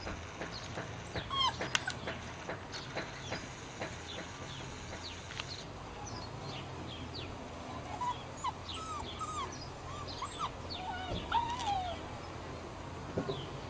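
Small birds chirping and singing, a scatter of short, quick high notes and sweeping calls, over a faint steady low hum.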